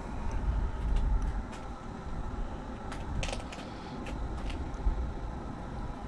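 Wind gusting against the microphone ahead of a thunderstorm: low buffeting rumbles in the first second and a half and again briefly near the end, over steady outdoor noise. A cluster of short sharp clicks comes about halfway through.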